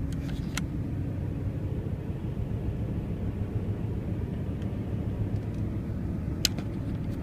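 Car driving, heard from inside the cabin: a steady low rumble of engine and road noise. A few light clicks near the start and one sharper click near the end.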